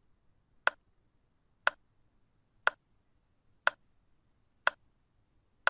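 Clock-tick sound effect of a quiz countdown timer: single sharp ticks, one a second, as the timer counts down.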